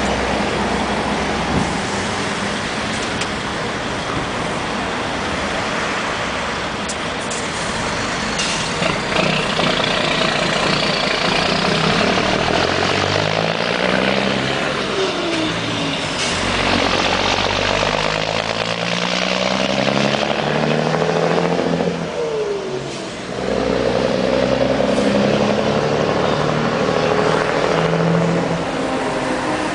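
DAF XF truck's diesel engine pulling away and accelerating. Midway the engine note climbs and drops several times in steps, as the gears change, with a short hiss about eight seconds in.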